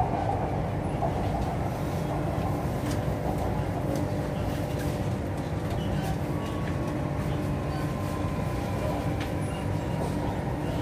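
Chennai Metro train running on an elevated track, heard from inside the passenger car: a steady rumble and rolling noise with a faint whine that drops slightly in pitch as the train slows on its approach to a station.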